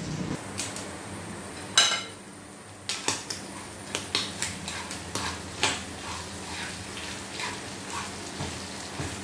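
A utensil clicking and scraping against a frying pan as calamari pieces are stirred, with the pan sizzling underneath. A single sharp clank comes about two seconds in.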